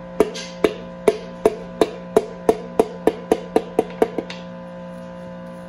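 A run of about fourteen sharp knocks that come faster and faster and stop about four seconds in, from a piston being tapped down its bore through a ring compressor during engine assembly.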